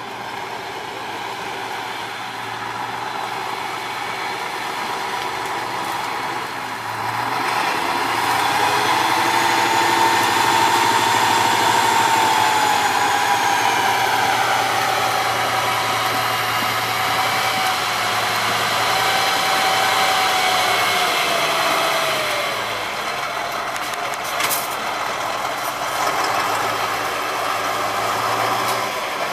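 Tatra 813 8x8 trial truck's diesel engine working under load, growing louder about seven seconds in, with a whine that wavers and then drops away a few seconds before the end. A single sharp knock comes near the end.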